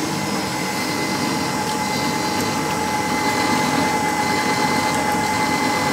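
Electric stand mixer's motor running steadily with a constant whine, its beater whipping date-and-egg cake batter in a stainless steel bowl.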